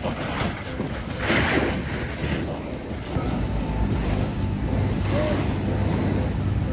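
Wind rumbling on the microphone, with a few louder swishing rushes from a long sheet of artificial turf being hauled across the field by hand, the loudest about a second in.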